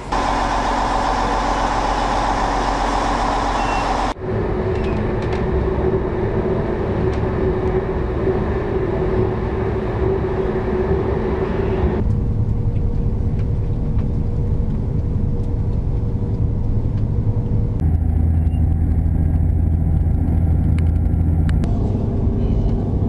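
The Prospector diesel railcar, first at the platform as it pulls in, then running along the line as heard from inside the carriage. It comes in several segments that change abruptly, some with a steady drone or low hum.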